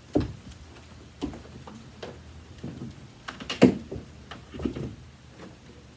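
Handling noises: a handful of separate light knocks and clicks, the loudest a little past halfway, with no motor running.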